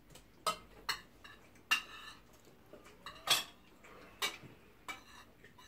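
Metal cutlery clinking and scraping against plates and dishes while people eat: about seven irregular clinks, two of them louder with a short ring.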